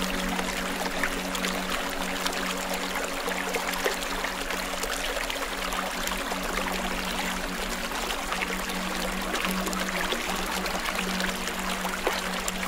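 Steady water-like rushing noise, thick with fine crackles, over a low sustained drone: a relaxation ambience track.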